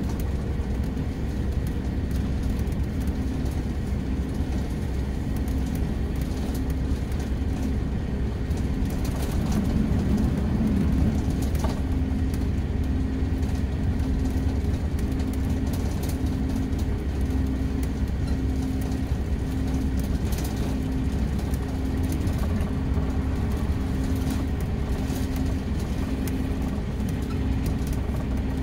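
Mercedes-Benz O-500RSD coach's diesel engine running steadily, a low drone with a faint beat repeating about once a second.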